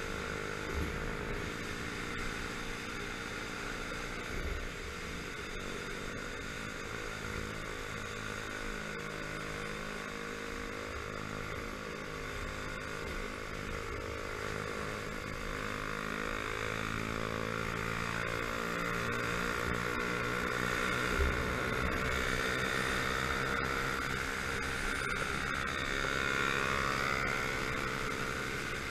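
Motorcycle engine running at a steady road cruise, heard from the bike carrying the camera, under a constant rush of wind. Past the halfway point the engine note climbs a little and gets louder as the bike speeds up.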